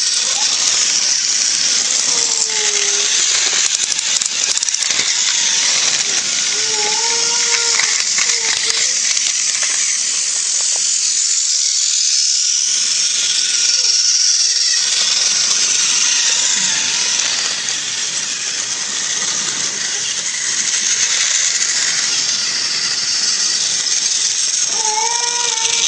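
Motorized toy train running on plastic track: a steady rattling clatter of small wheels and track joints with many fine clicks.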